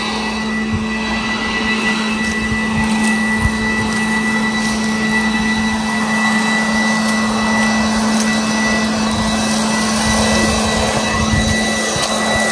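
Leaf blower running steadily: a constant rush of air with a steady whine.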